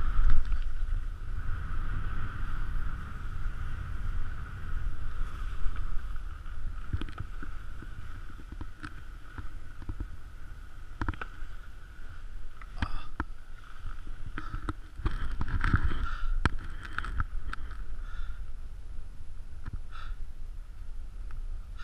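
Skis running downhill over snow, with wind rushing on the camera microphone and a steady hiss of the skis sliding. From about seven seconds in there are short, sharp scrapes and clicks from the skis.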